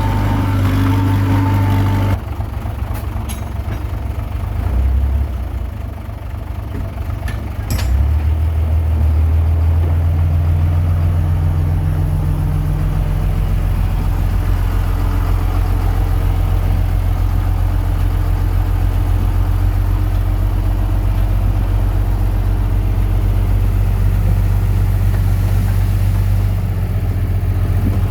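Diesel engine of a Komatsu D21P crawler bulldozer running. It eases off about two seconds in, then picks up again about eight seconds in and runs on steadily and more heavily.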